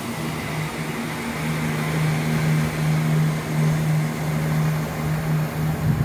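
Chiltern Railways diesel multiple unit running past the platform, a steady low diesel engine hum over the noise of the train on the track.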